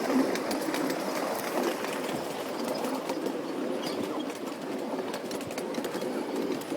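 Small backyard ride-on train running along its track: a steady rattle with fine clicking from the wheels and cars.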